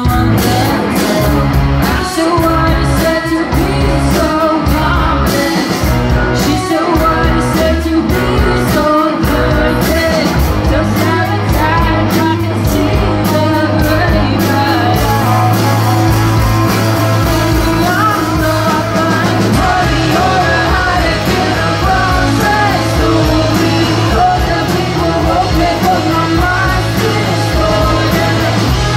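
Live rock band: a woman singing lead over electric guitars, electric bass and a Yamaha drum kit. About ten seconds in, the drum strokes thin out and a long, steady low bass note holds under the singing and guitars.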